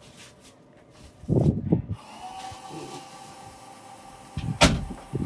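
A steady electrical whine, like a small motor, starts abruptly about two seconds in, after a couple of dull thumps. A sharp click comes near the end.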